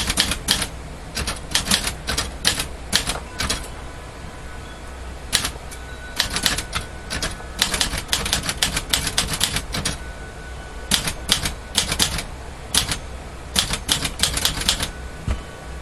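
Olivetti Dora manual portable typewriter being typed on: runs of sharp keystrokes in word-length bursts with short pauses between. The keys are struck hard because the ribbon is printing faint.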